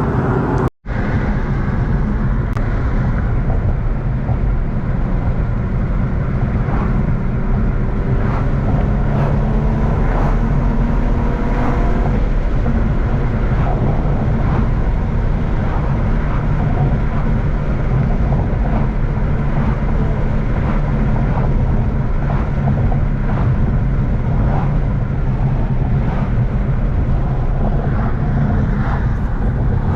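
Bolt-on Infiniti G35's V6 engine and road noise heard while driving: a steady, loud rumble. About ten seconds in, the engine note rises as the car speeds up. Just under a second in, the sound breaks off briefly at an edit cut.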